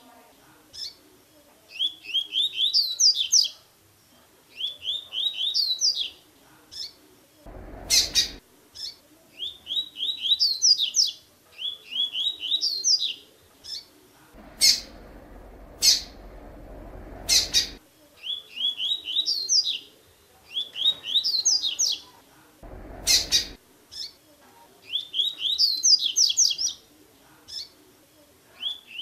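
Double-collared seedeater (coleiro) singing its tui-tui song: short phrases repeated every two to three seconds, each a quick run of rising notes. Three noisy rushes break in: a brief one about a quarter of the way in, a longer one of a few seconds in the middle, and a brief one about four-fifths in.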